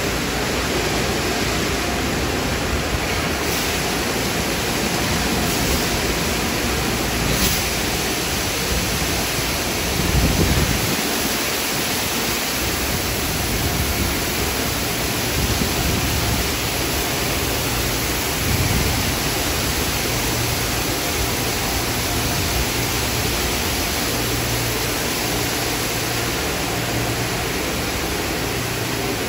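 Automatic car wash tunnel running: a steady rush of spraying water and spinning cloth brushes, with a brief louder low rumble about ten seconds in.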